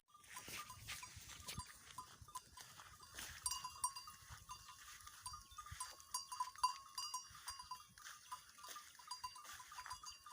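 Goats browsing in brush: faint rustling and crackling of foliage with many light clicks, over short repeated high tones.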